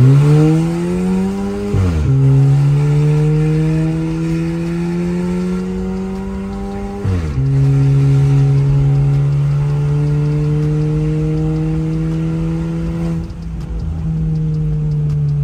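Volkswagen Jetta with a straight-through exhaust accelerating hard through the gears, heard from inside the cabin. The engine note climbs, drops sharply at two quick upshifts about two and seven seconds in, climbs again, then falls away as the throttle is lifted near the end.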